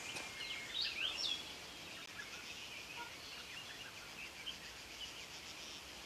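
Wild birds singing in a forest: a few clear, sweeping whistled phrases in the first second and a half, then fainter scattered chirps over a steady soft hiss of outdoor ambience.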